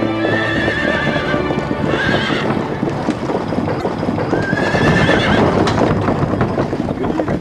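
Horses' hooves clattering on stone paving, with horses whinnying three times: near the start, about two seconds in, and a longer one past the middle. Background music plays underneath.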